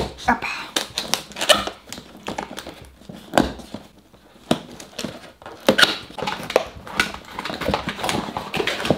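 Cardboard shipping box being handled and opened by hand: an irregular run of taps, scrapes and rustles of the cardboard flaps and packaging, with a few louder knocks.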